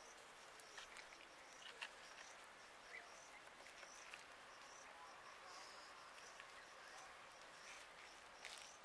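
Near silence with faint, high insect chirps repeating every second or so, and a few small clicks.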